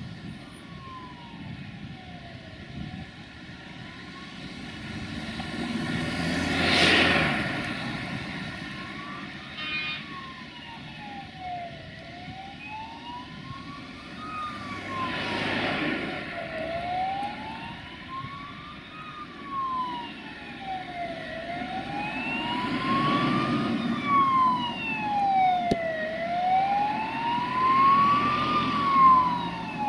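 Emergency vehicle siren wailing, a tone that slowly rises and falls every four to five seconds and grows louder toward the end. Swells of broad rushing noise from passing vehicles come and go under it, the loudest about seven seconds in.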